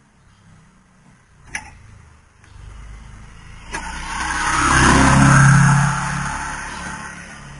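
A motor vehicle passing by: its engine hum and tyre noise swell to a peak about five seconds in, then fade. Two sharp metallic clicks come before it.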